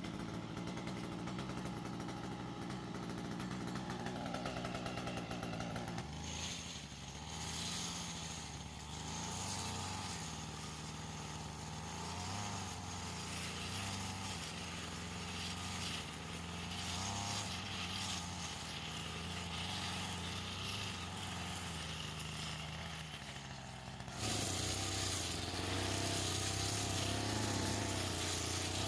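Small petrol engine of a grass-cutter-driven generator running, its speed wavering up and down, and getting louder near the end.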